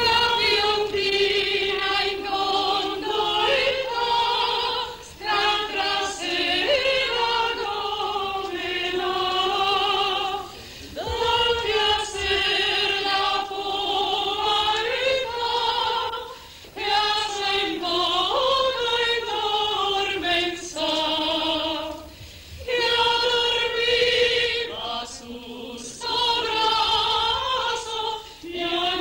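A group of voices singing a serenade together, in sung phrases separated by short breaths every few seconds.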